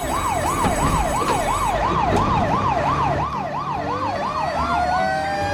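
Fire-engine siren yelping, sweeping up and down nearly three times a second, then changing to a slow rising wail near the end.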